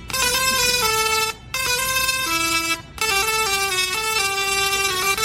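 A musical Tesla coil playing a tune from MIDI, its sparks sounding sustained notes that step from pitch to pitch, often two or three at once. The music breaks off briefly twice, about one and a half and three seconds in.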